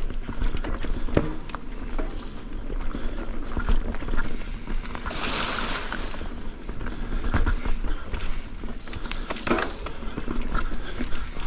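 A mountain bike rolling fast over a rough trail wet from rain: tyre noise with the bike rattling and knocking over rocks and roots, and a louder rush of noise about five seconds in.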